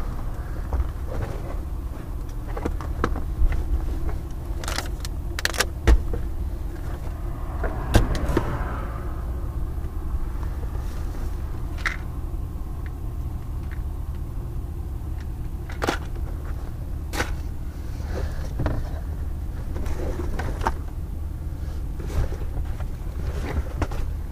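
Scattered knocks, clicks and rustles of items being handled and moved around inside a car, over a steady low rumble.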